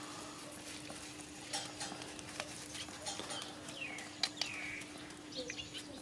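Puppies suckling at their nursing mother dog: small scattered wet smacking clicks. About four seconds in come two short, high, falling chirps, over a faint steady hum.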